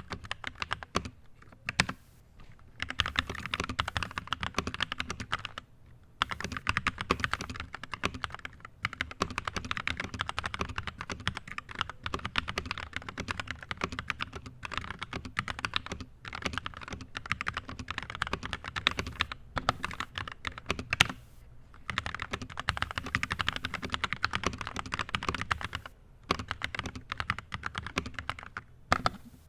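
Fast typing on a Tecware B68 65% mechanical keyboard with JWICK Red linear switches (60 g springs), in bursts broken by short pauses. The keystrokes sound smooth and clean, with no tactile bump, muffled a little by foam under the PCB.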